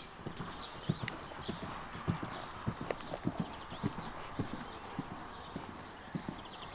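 Horses' hooves on the sand arena footing: a run of dull, uneven hoofbeats.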